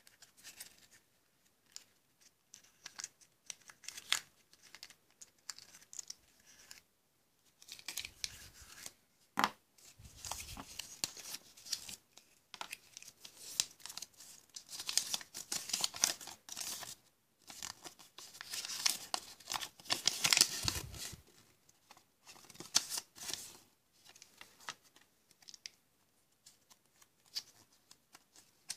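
Handling and unwrapping a Kinder Surprise toy: a few small clicks of the yellow plastic capsule being opened, then crinkling and tearing of the thin wrapper around the toy pieces, loudest in the middle, and rustling of the folded paper leaflet near the end.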